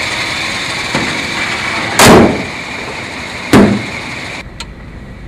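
Two heavy car doors of a 1939 Cadillac V16 convertible sedan slamming shut about a second and a half apart, the first about two seconds in. Shortly after the second, the steady background hiss cuts off and the sound turns duller and quieter.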